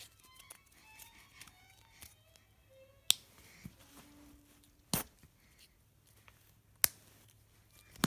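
Three sharp clicks about two seconds apart over a low steady hum.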